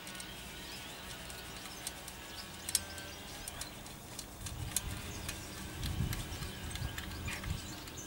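Scattered small metallic clicks and ticks of a new bicycle spoke's nipple being worked and tightened at the rim, with an irregular low handling rumble from the wheel in the second half.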